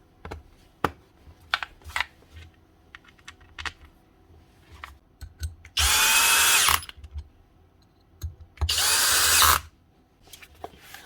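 Power drill-driver run in two short bursts of about a second each, its motor pitch rising as it spins up, driving in the screws that hold the hammer's top plate and cover, with light clicks of small parts being handled in between.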